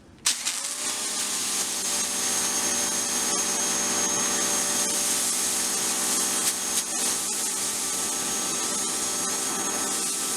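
Ryobi 1600 PSI electric pressure washer kicking on suddenly just after the start and running steadily, motor and pump hum under the hiss of spray through a foam cannon.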